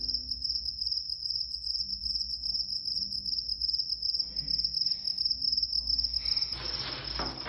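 A cricket calling: a steady, very high-pitched, rapidly pulsing trill that fades and stops near the end, with a short rough noise as it stops.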